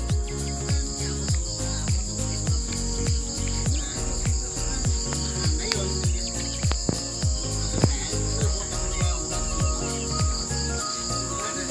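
Crickets trilling steadily in a high, unbroken band. Underneath is music with a deep kick-drum beat about twice a second over held bass notes.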